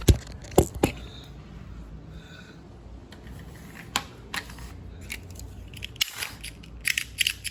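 Scattered sharp clicks and taps from a Carrera slot car being handled on its plastic track after coming off, a few single clicks early and a quick cluster near the end, over a faint steady hum.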